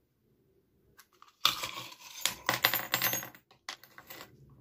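Small steel twist drill bits clattering onto a tabletop: a quick jumble of metallic clinks, then a few lighter clicks as they are pushed about.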